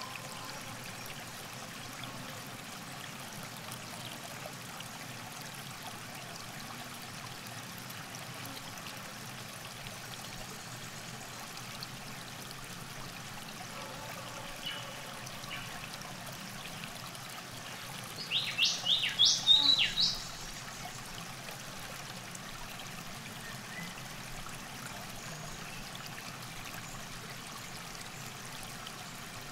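Gentle trickle of river water along the bank under a steady soft outdoor hush, with a bird calling in a quick burst of high chirps about two-thirds of the way through, the loudest thing heard.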